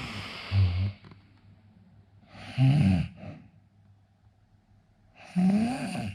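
A sleeping man snoring heavily: two loud, rasping snores about three seconds apart, each with a pitch that rises and falls over a breathy hiss, after a shorter one near the start.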